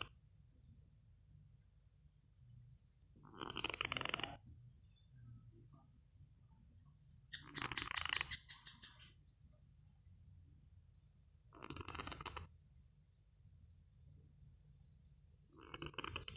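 A domestic cat snoring in its sleep, one snore about every four seconds, four in all.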